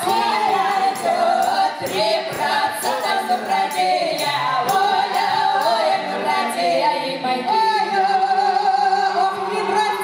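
A small folk ensemble of women's voices with a man's, singing a Russian Cossack folk song in parts, unaccompanied but for a light regular beat.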